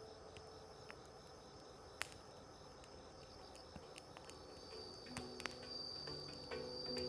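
Wood fire crackling with scattered sharp pops, the loudest about two seconds in, over a steady high insect trill like a cricket's. Soft handpan notes come back faintly in the last couple of seconds.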